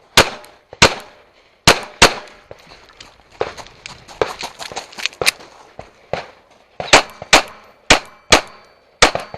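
Rapid pistol fire from a compact backup handgun during a timed course of fire: about a dozen sharp shots, mostly in quick pairs, with fainter cracks in between.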